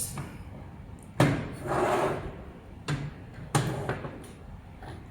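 Light-track sections being handled and fitted together: a sharp knock about a second in, a short sliding scrape, then a small click and another sharp knock.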